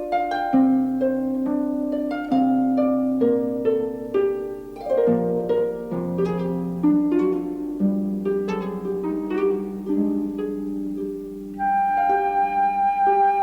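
Orchestral background score: harp with plucked and bowed strings playing a gentle melody of quick plucked notes over held lower notes.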